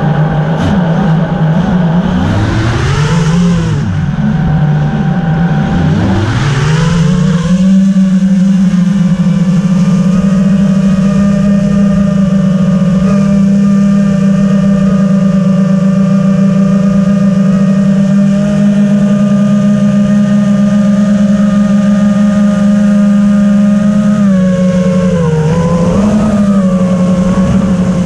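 FPV racing quadcopter's electric motors and propellers whining, heard close up from the GoPro mounted on the drone. The pitch swoops up and down a few times in the first several seconds as the throttle changes, then holds steady, dipping briefly near the end.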